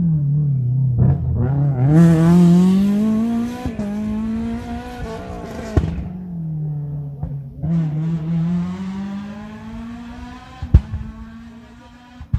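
Rally car engine running hard, its pitch climbing and dropping several times as it is driven through the gears, then fading away. A sharp crack comes near the end.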